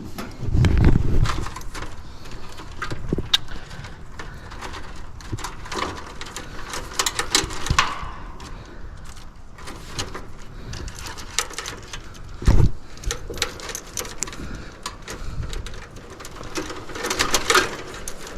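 Hands working wiring and parts inside a heat pump's outdoor unit, making scattered clicks, rustles and handling knocks. A heavier thump comes about a second in and another about two-thirds of the way through.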